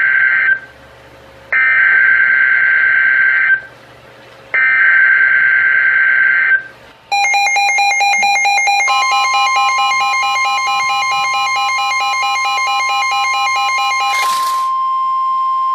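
NOAA Weather Radio alert signal: three roughly two-second bursts of buzzy SAME digital header data, then the steady warning alarm tone, with a pulsing receiver alert beeping over it that stops about two seconds before the end.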